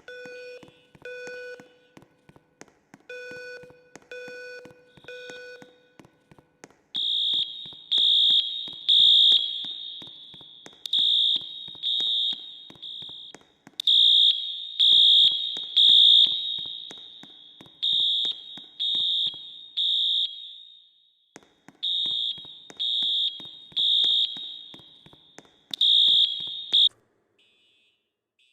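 School fire alarm sounding beeps in groups of three, the evacuation pattern. At first it is a lower-pitched tone; from about a quarter of the way in, a much louder, shrill high-pitched beep in groups of three takes over. It stops shortly before the end.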